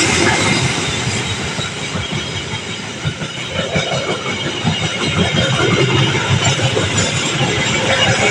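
A long train passing close by, a loud steady rumble with the irregular clatter of its wheels on the rails.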